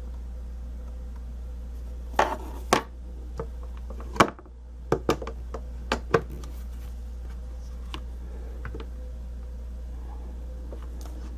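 Sharp clicks and knocks of stamping tools being handled on a work surface: two about two seconds in, a loud knock about four seconds in, then a quick run of taps over the next two seconds, over a steady low hum.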